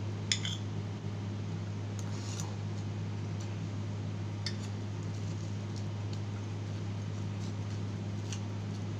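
A steady low hum with a few small sharp clicks and taps over it: a metal spoon tapping a plate of rice, the loudest click about a third of a second in, then faint mouth sounds of chewing fried chicken.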